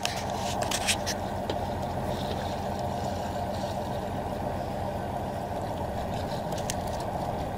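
Fishing boat's engine running steadily under way, a low drone with wind and water hiss over it. A few sharp clicks and knocks on deck come about a second in and again near the end.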